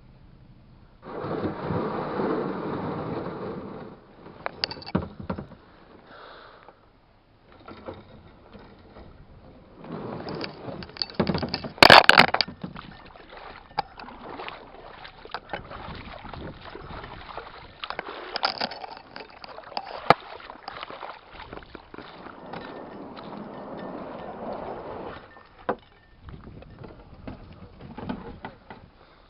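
Kayak being paddled on a river: uneven stretches of paddle splashing and water noise, with scattered sharp knocks, the loudest about twelve seconds in.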